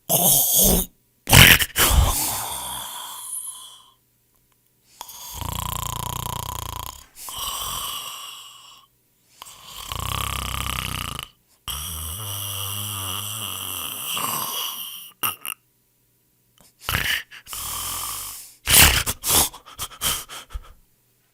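People snoring: a run of separate snores a second or two long, some with a coarse low rattle, spliced together with abrupt cuts to dead silence between them. Near the end comes a quick cluster of short snorts.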